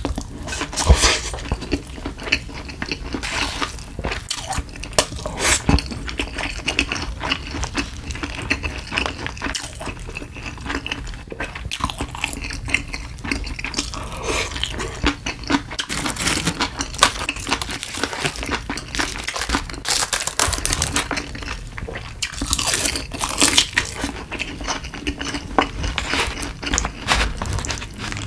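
A person chewing mouthfuls of rice and side dishes from a convenience-store lunch box, wet mouth sounds with many small clicks throughout.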